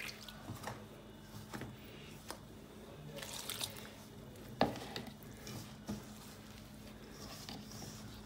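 Hand mixing and kneading freshly watered chapati dough in a steel bowl: soft squishing and rustling of damp flour with scattered light taps, and one sharper knock about four and a half seconds in.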